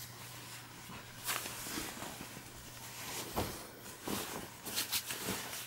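Rustling and soft bumps of a jacket being handled and spread out on a bed: a handful of brief, irregular noises over a steady low hum.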